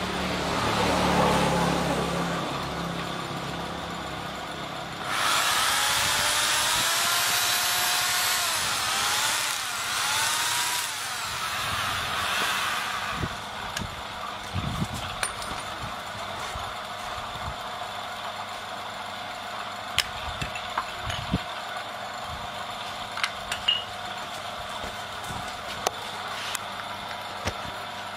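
Handheld electric drill whirring for about eight seconds, its pitch repeatedly rising and falling. It then goes quiet, leaving a faint steady whine and scattered sharp clicks of switches being handled.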